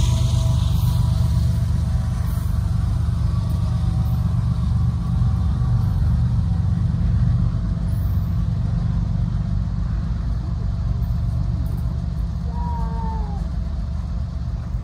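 Low, steady rumble of a receding empty coal train, fading slowly as it moves away. A faint, short arched tone comes in near the end.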